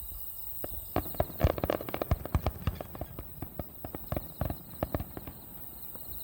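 Fireworks bursting in a rapid crackling run of many sharp bangs, thickest about two seconds in and thinning out near the end, heard from some distance.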